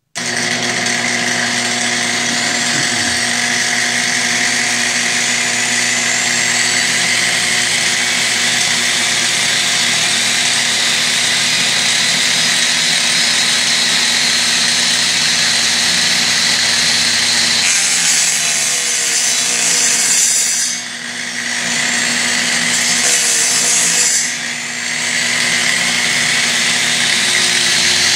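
Angle grinder with a cutting blade, mounted on a homemade sliding attachment, running steadily while cutting aluminum plate. Twice past the middle the sound turns harsher and brighter, and each time it then dips briefly.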